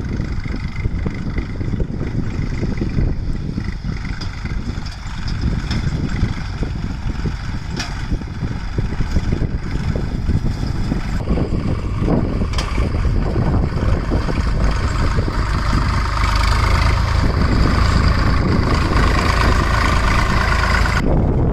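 Diesel engines of a JCB backhoe loader and a tractor running steadily during loading, with a few short knocks, growing louder about two-thirds of the way through.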